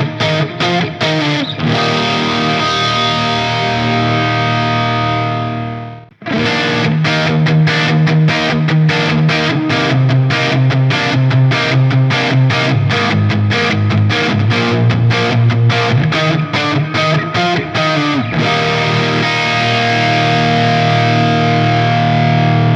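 PRS Standard 24 electric guitar with DMO pickups, played with a distorted tone through a Line 6 Helix LT. Quick picked notes lead into a chord held for a few seconds that is cut off about six seconds in. A long run of quickly picked notes follows, then a final chord rings out and fades at the end.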